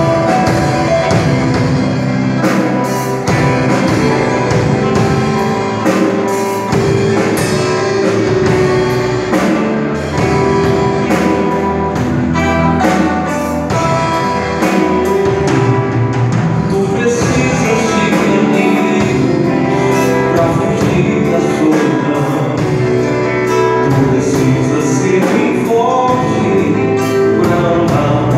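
Live band playing a Christian worship song, with drum kit, guitar and singing over a steady beat.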